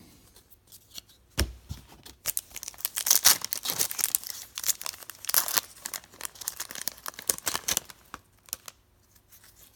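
A hockey card pack's wrapper being torn open and crinkled by hand, a dense run of rips and crackles lasting several seconds, after a soft thump about a second and a half in.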